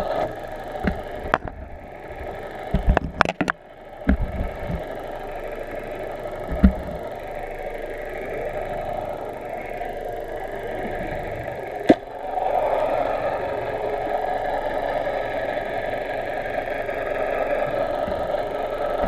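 Boat motor running steadily, heard underwater through a submerged camera housing, with a few sharp knocks; the drone grows louder about twelve seconds in.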